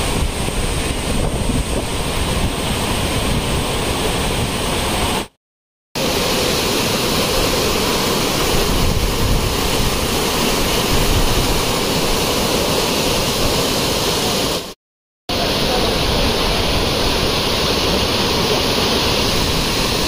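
Rushing water of a rocky mountain stream cascading and splashing over boulders, a steady dense rush. It drops out twice into brief, sudden silence, about five and fifteen seconds in.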